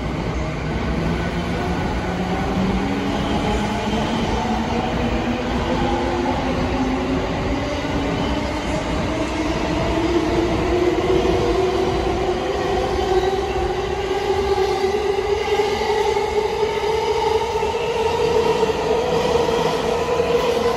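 JR Yokosuka Line electric commuter train accelerating away: its traction motors whine in several tones that rise steadily in pitch over the rumble of the wheels on the rails.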